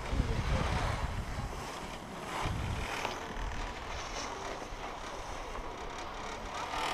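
Wind buffeting the microphone of a camera riding on an open chairlift chair: a low rumble that swells at the start and again about two and a half seconds in.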